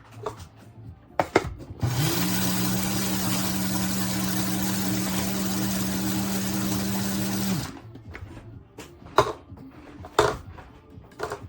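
TWOMEOW one-touch electric coffee grinder's motor spinning up about two seconds in and running steadily with a whirring hum for about five and a half seconds, then stopping abruptly. A few clicks and knocks of the grinder being handled come before and after.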